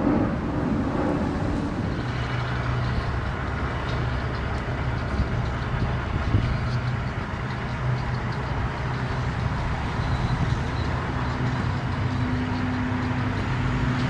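Motor engines idling with a steady low hum, a second, higher engine note joining about eleven seconds in.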